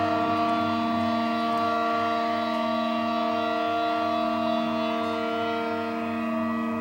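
Amplified electric guitar drone: several notes held steady at once, with a low throbbing pulse beneath them, easing off slightly near the end.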